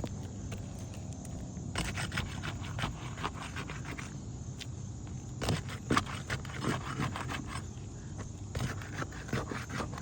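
Roof snake (a metal shingle-removal tool) scraping and prying under asphalt shingles as they are lifted, in irregular bunches of scrapes and clicks.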